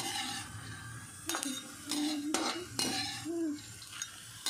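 A perforated metal skimmer scraping and clinking against a metal wok (kadhai) as roasted peanuts are scooped out of the hot oil, with several sharp scrapes in the middle and a faint sizzle underneath.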